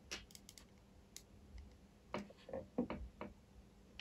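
Faint, scattered small clicks and taps as a soldering iron tip is worked against a U-shaped metal staple set in a small plastic part, a few near the start and a quick run of them about two to three seconds in.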